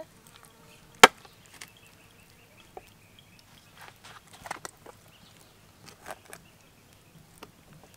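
Scattered light clicks and taps of wooden meatball skewers against a steel bowl of chili sauce and a metal serving tray, with one sharp click about a second in.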